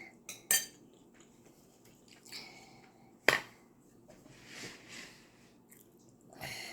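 Eating sounds: chewing with a few sharp clicks of cutlery against a plate, the loudest about three seconds in.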